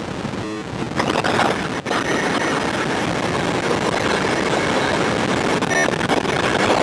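Raw audio from the Mr. Grassi touch module's runglers (shift-register chaos driven by square-wave oscillators, read out through 4-bit DACs), played by fingers on its touch plates. It gives a dense, harsh, chaotic noise with brief stepped patterns. It jumps louder about a second in and drops out for an instant just before two seconds.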